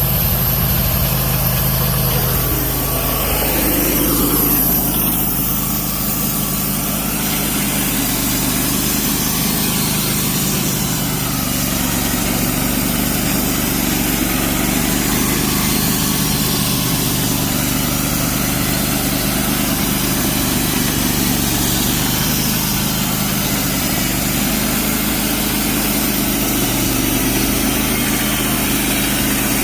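Gas engine of a Wood-Mizer LT15 Wide portable band sawmill running steadily while the band blade saws a redwood log. The engine note shifts a few seconds in, then holds steady.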